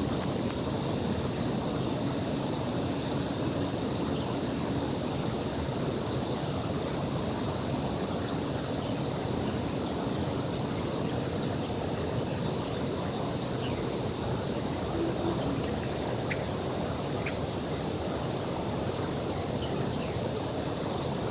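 Steady outdoor background rush with a faint, even high hiss above it and no distinct events, apart from a couple of tiny clicks near the end.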